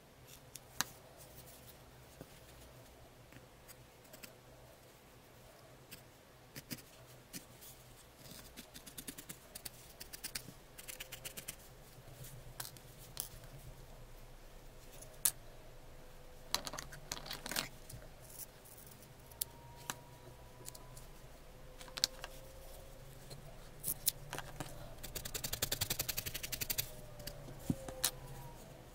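Felting needle stabbing into a wool-felt cat head, in quick runs of soft ticks with pauses between; the longest, fastest run comes near the end.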